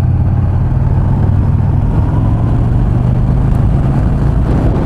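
Yamaha XV950R's air-cooled V-twin engine running steadily while the motorcycle rides at a constant pace, a low even drone.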